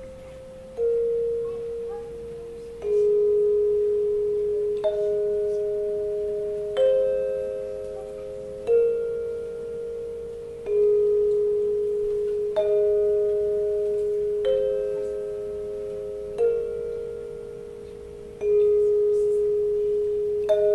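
Instrumental music: a slow melody of single bell-like mallet notes, a new note struck about every two seconds, each ringing on and fading under the next.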